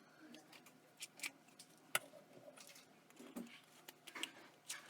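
Sparse faint clicks and taps of small tools and parts being handled while the frame is worked off an iPhone 5s screen assembly, with one sharper click about two seconds in.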